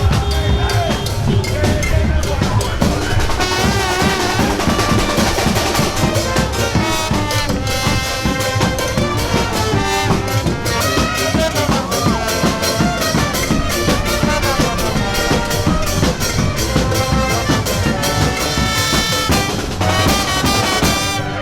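Music with brass and drums playing loudly to a steady beat, with wavering held brass notes.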